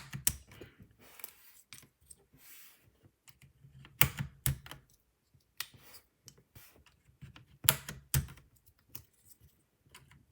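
Plastic keycaps being pressed onto the brown switches of a Ducky mechanical keyboard: scattered sharp clicks that come a few at a time, with a soft rustle between.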